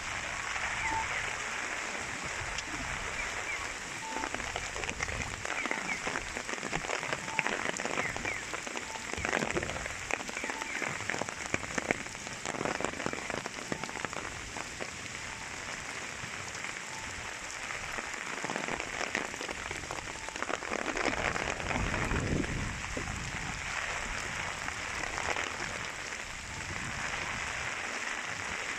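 Heavy typhoon rain falling on the street and surrounding surfaces: a dense hiss of drop impacts that swells and eases in waves.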